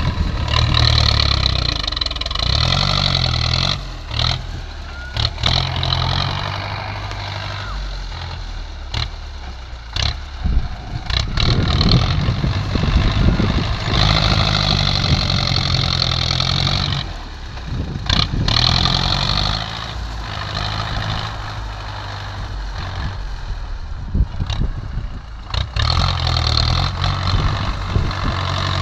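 Heavy diesel earthmoving machinery working under load, engine pitch rising and falling as it revs, with repeated sharp knocks and clanks.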